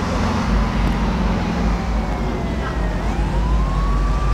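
An emergency-vehicle siren wailing, its pitch sliding slowly down and then rising again about three seconds in, over a steady low rumble.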